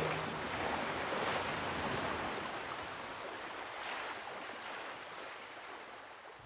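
Steady rushing wash of sea waves, slowly fading out.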